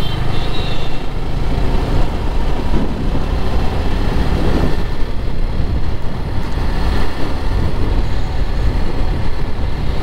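Motorcycle on the move at road speed: engine running with a dense, steady rush of wind and road noise.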